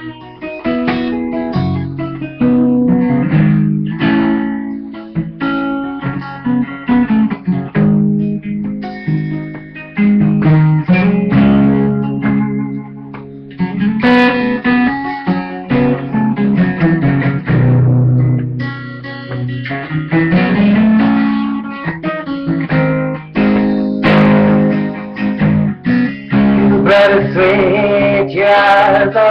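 Guitar playing the instrumental introduction to a song, a run of plucked and strummed chords.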